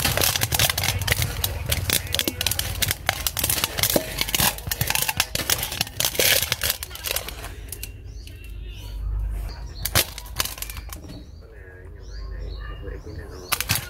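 Metal spoon scraping and stirring rice and fish in a metal bowl, a dense run of scrapes and clinks that eases off after about eight seconds.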